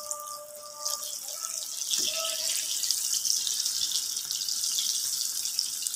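Taro fritters deep-frying in hot oil in a frying pan: a steady, crackling sizzle as they cook until brown.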